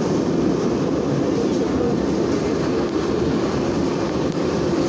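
Metro train running through a tunnel, heard from on board: a steady, even running noise of the car and its wheels on the rails.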